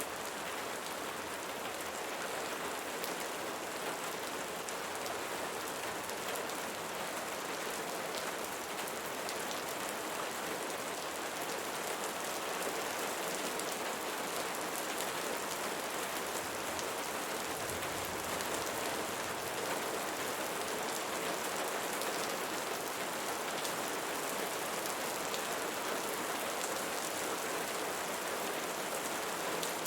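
Steady rainfall: an even, unbroken hiss of rain with many fine ticks of individual drops.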